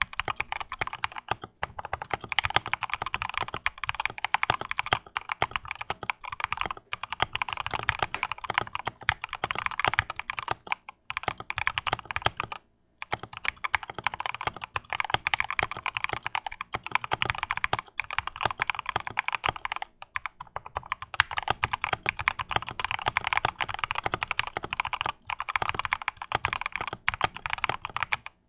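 Fast, continuous typing on a custom wooden-case 65% mechanical keyboard with Gateron Oil King switches on a polycarbonate plate, broken by a couple of brief pauses. This is the keyboard's first build configuration, with switch pads but no case foam, and the builder finds it sounds hollow.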